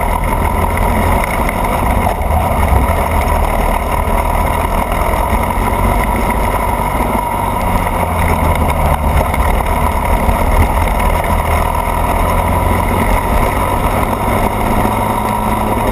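Racing kart engine running hard at speed, heard up close from a camera mounted on the kart; the sound is loud and steady throughout.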